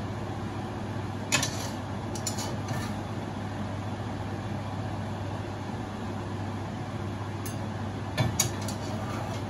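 A metal spatula knocking and scraping against a wok a few times as stir-fried greens are served out, with the loudest knock about a second in and another cluster near the end. A steady low hum from the kitchen runs underneath.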